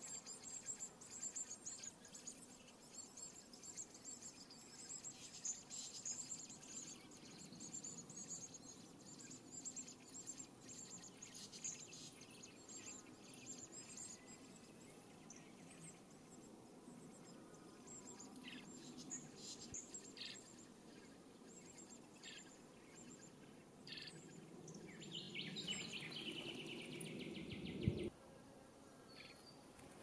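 Common blackbird nestlings begging at the nest with many short, thin, high chirps while being fed, over a faint background hum. Near the end a denser burst of rapid high calls builds and cuts off suddenly.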